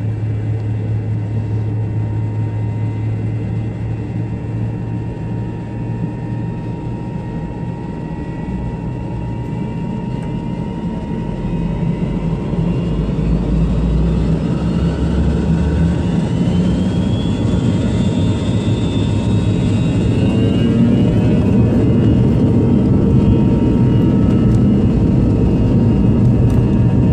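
Jet airliner's engines heard from inside the cabin: a steady hum at first, then spooling up to takeoff power from about halfway, with a whine that rises in pitch and a rumble that grows louder as the takeoff roll begins.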